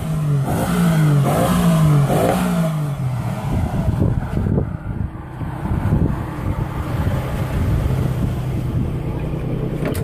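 Lifted Jeep's engine revved in about five quick blips, each falling back in pitch, then idling steadily.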